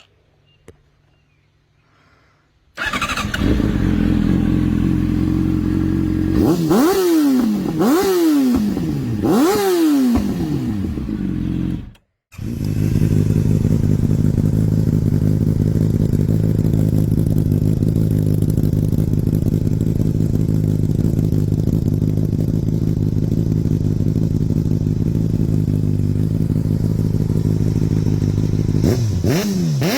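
Honda CBR600RR inline-four sportbike engine through an aftermarket exhaust, idling, then blipped three times in quick succession, each rev rising and falling in pitch. After a sudden break about twelve seconds in, a bike with another exhaust idles steadily and gets one more throttle blip near the end.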